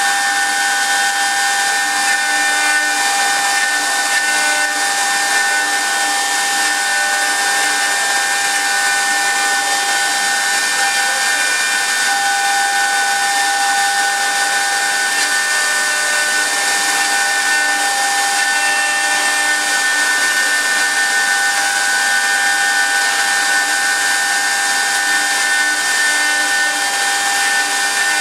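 CNC wood turning lathe running, its 3.5 kW air-cooled spindle giving a steady high whine of several constant tones over an even hiss.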